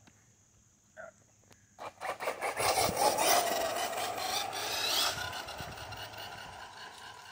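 ARRMA Typhon 6S brushless RC buggy launching at full throttle on asphalt. About two seconds in, a harsh rasp of tyres scrabbling for grip, then a rising motor whine with tyre noise that fades as the buggy speeds away.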